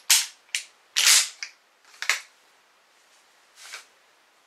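Sharp metallic clacks from the action of a Mossberg Mariner 500 12-gauge pump-action shotgun, its slide racked back and forth: about five clacks in the first two seconds, then one fainter clack near the end.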